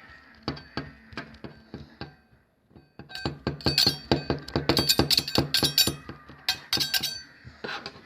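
A quick series of sharp clinks and knocks with short ringing, sparse at first, then a brief pause, then a faster, louder run of strikes for about four seconds.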